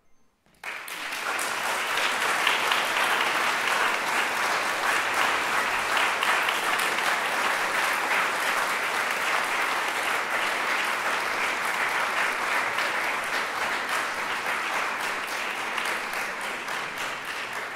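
Audience applauding, breaking out suddenly under a second in as a dense, steady clapping that begins to die away near the end.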